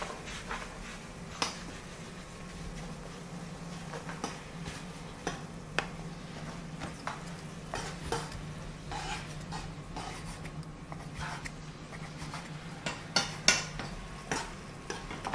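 Scattered clicks and knocks of kitchen utensils, a knife on a wooden pasta board and a spoon clinking and scraping in a stainless steel pan, over a steady low hum. The loudest clinks come near the end.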